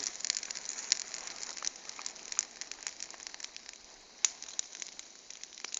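Bonfire crackling: a steady hiss with many scattered sharp pops, one louder pop about four seconds in.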